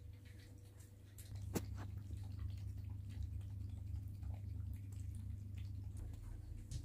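British Shorthair kittens and an adult cat lapping milk from a shallow dish: a rapid, uneven run of small wet tongue clicks, with one sharper click about one and a half seconds in.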